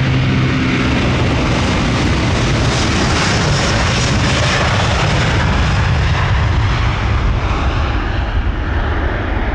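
A jet airliner's engines running loud and steady, a dense roar of noise. A low hum heard at the start fades within about a second.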